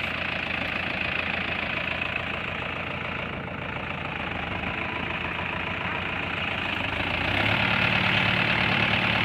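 Diesel tractor engine running steadily, getting louder and lower about seven seconds in as it works against a tractor bogged deep in mud on a tow line.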